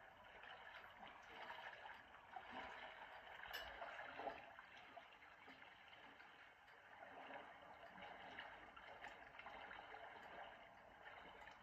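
Faint trickling, gurgling water sound from a fish video playing on a television, with a small click about three and a half seconds in.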